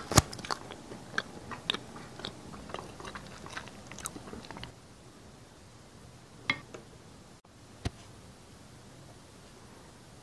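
Close-up crunchy biting and chewing, a quick run of sharp crunches and wet clicks that stops a little under five seconds in. Two single clicks follow, about six and a half and eight seconds in.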